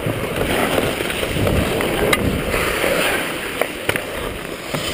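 Ice skate blades scraping and carving the ice, with air rushing over a helmet camera as the skater moves up the rink. A few sharp clacks cut through, about two seconds in and twice near four seconds.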